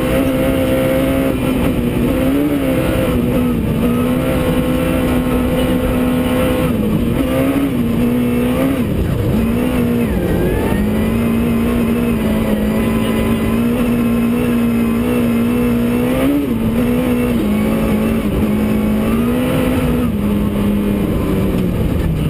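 Suzuki S1600 rally car's four-cylinder engine heard from inside the cabin, running hard at high, near-steady revs with short lifts and blips, with a deeper dip about nine to ten seconds in. Near the end the revs drop away.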